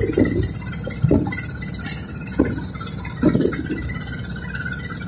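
Boat engine running steadily, with a few short thumps in between.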